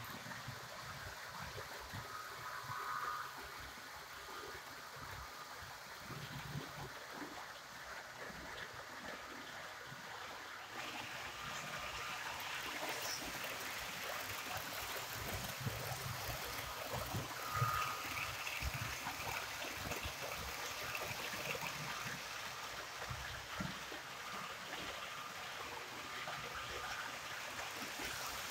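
HO-scale model train running along the track, its metal wheels giving a steady rushing rumble on the rails as the UIC-X coaches pass close by. The sound grows louder and brighter about ten seconds in.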